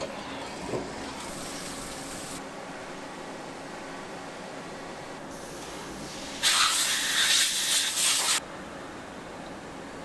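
A loud hissing spray lasts about two seconds, with a brief break near its end. A shorter, fainter hiss comes earlier, and a steady machine hum runs underneath.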